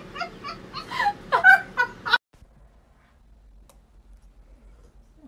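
A cat giving a quick run of short, loud meowing cries, which cut off abruptly about two seconds in. Only faint quiet sound follows.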